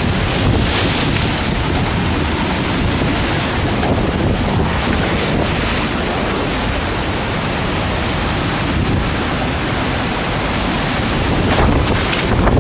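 EF2 tornado's winds rushing past the house in a loud, steady rush, buffeting the phone's microphone, with a gust swelling near the end.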